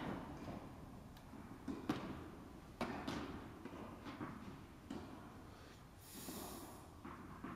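Tennis balls struck and bouncing during a rally, a series of sharp pops that echo in a large indoor hall, the loudest two about a second apart.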